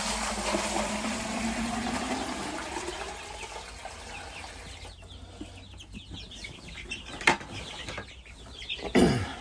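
Water pouring from a bucket into a poultry drinker for about four seconds, its pitch rising a little as it fills. Then month-old chicks peep, with a sharp knock about seven seconds in and a louder knock near the end.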